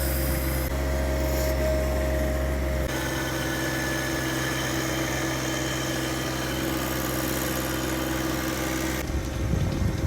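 Diesel tractor engine running steadily, its note changing abruptly about three seconds in and again near the end.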